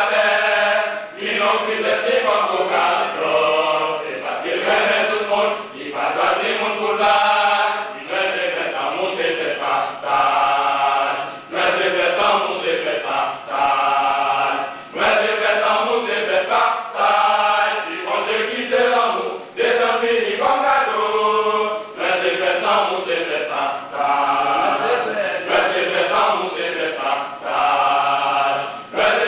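Men's choir singing together, in short phrases that break every second or two.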